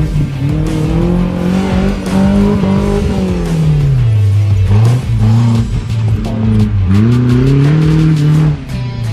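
Off-road 4x4 jeep's engine revving under load as it climbs a dirt bank; its pitch rises, drops about halfway through, rises again and falls near the end. Background music plays underneath.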